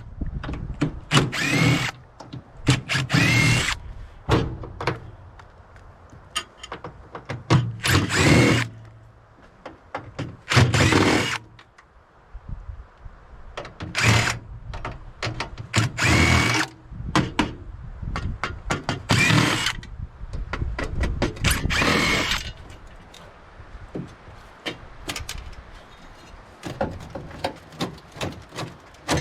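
Power drill run in about ten short bursts, each spinning up with a rising whine, with clicks and knocks in between. Typical of screws being driven out while a microwave is stripped for scrap.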